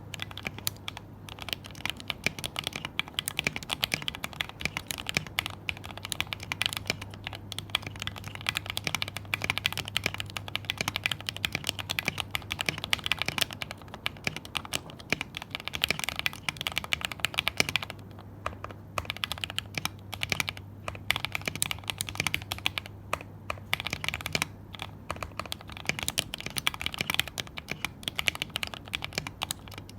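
Continuous typing on a 60% mechanical keyboard with lubed Gateron Yellow linear switches (Krytox 205g0) and PBT keycaps in a Tofu case: a dense stream of key clacks, stopping briefly a few times.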